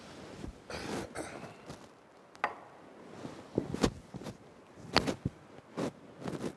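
Handling noise close to the microphones as papers and a book are handled on a table: a rustle about a second in, then about six sharp taps and knocks at irregular intervals.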